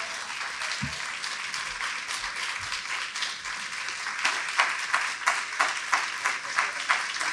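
Audience applauding: many people clapping at once, with sharper single claps standing out in the second half.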